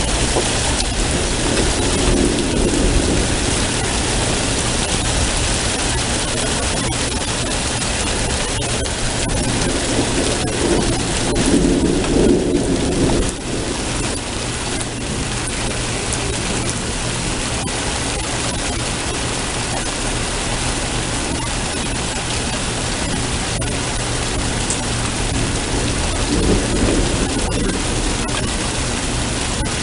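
Steady rain of a thunderstorm with rumbles of thunder rolling in three times, the loudest about twelve seconds in.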